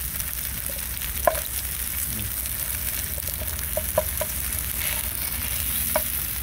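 Frozen ready-made rice sizzling in a hot pan as it is stirred, with a steady hiss. A few short clicks of the utensil against the pan come about a second, four and six seconds in.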